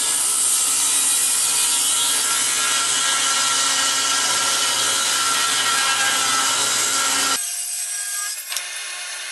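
Table saw fitted with a 7 1/4-inch circular saw blade, ripping a thin strip off a wooden board. About seven seconds in, the cutting noise stops and the saw keeps running free, with one short knock soon after.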